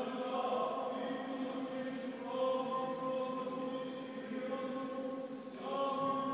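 Orthodox church choir singing a slow liturgical chant, holding long sustained chords that change about two seconds in and again near the end.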